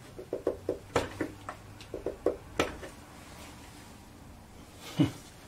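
Light metal clicks and knocks as a pry bar levers against a seized brass pump valve stem clamped in a vise: about a dozen in the first two and a half seconds, then a single louder thump about five seconds in.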